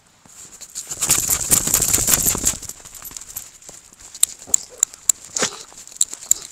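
A Shih Tzu snuffling and snorting with its nose in the snow, loudest for a second and a half about a second in. After that come scattered sharp crunches and clicks of steps in the snow.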